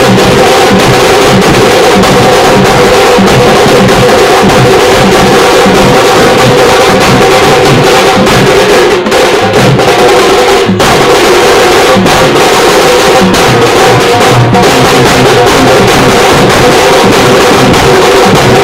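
A festival procession drum band plays a fast, driving beat, very loud and unbroken, with steady pitched tones held beneath the drumming.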